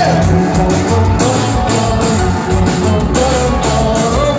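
Live rock band playing loud, with electric guitars, bass and drum kit, heard from within the crowd.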